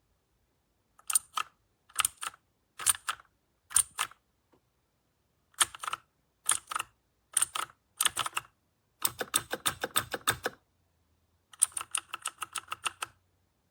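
Keys of a MageGee mechanical keyboard with clicky blue switches being pressed. First come single key presses about a second apart, then two fast runs of typing near the end.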